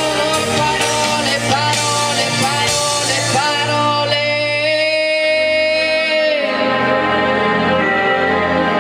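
A woman sings a pop ballad into a microphone over a karaoke backing track. About four seconds in she holds one long note for around two seconds. After that the backing track plays on alone.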